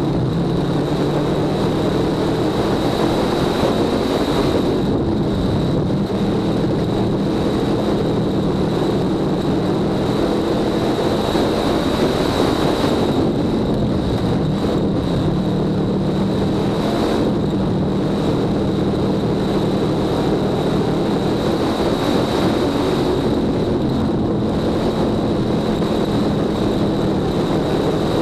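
Dirt-track stock car's engine running hard at racing speed, heard from inside the cockpit. Its pitch rises and falls and it eases off briefly several times. A steady high-pitched whine runs under it.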